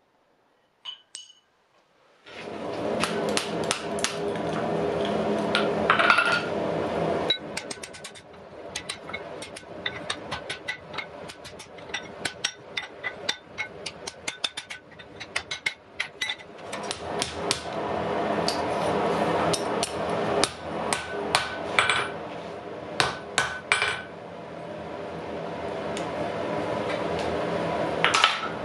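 Blacksmith's hammer striking red-hot iron on an anvil in many quick, irregular blows while forging an axe head and wrapping its eye around a round bar. Some blows leave a short ringing tone. A steady hum runs underneath, and the first two seconds are nearly silent.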